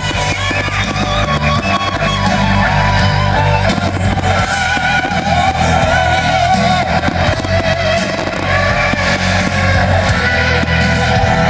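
Pop-rock music with a singer over guitar and a steady bass line.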